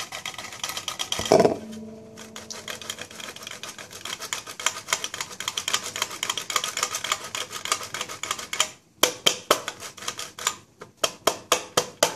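A block of parmesan being grated by hand on a metal box grater over a metal bowl: quick scraping strokes, several a second. About a second and a half in there is a single knock that rings briefly. From about nine seconds on the strokes come slower and sharper.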